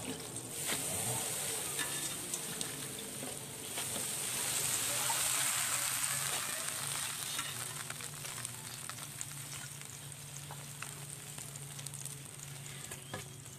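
Leafy greens stir-frying in a wok: a steady sizzle that swells a few seconds in and eases toward the end, with the scrape and tap of a wooden spatula against the pan.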